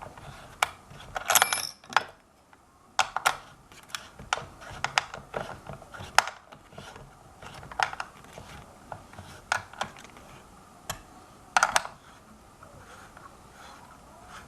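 Irregular metallic clicks and clinks of a hand tool on bolts and the scooter's metal frame as the wheel-motor mount is tightened, a couple of them ringing briefly.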